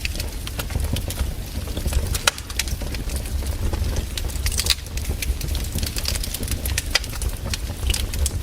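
Campfire crackling, with irregular sharp pops and snaps of burning wood over a steady low rumble.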